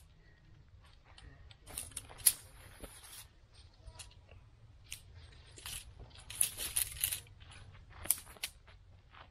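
Aluminium alloy tent pole sections clinking and clicking as they are unfolded and fitted together, in irregular clusters of sharp metallic ticks, the sharpest about two seconds in.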